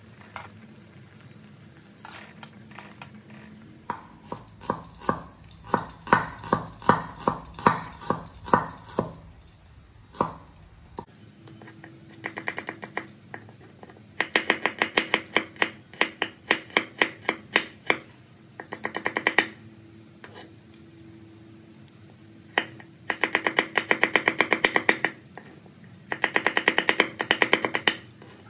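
A knife chopping red onion on a wooden cutting board: quick runs of sharp taps, several a second, in bursts of a few seconds with short pauses between. Before them, a slower series of ringing knocks, about two a second.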